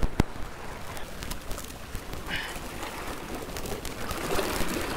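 Seawater washing and splashing among jetty rocks, with scattered sharp clicks and knocks, the loudest about a quarter second in.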